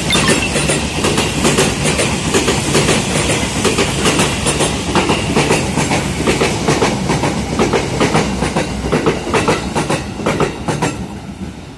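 Ex-Tokyo Metro 6000 series and ex-JR 205 series electric commuter trains passing each other close by, their wheels clattering rhythmically over the rail joints. The sound fades near the end as the trains move off.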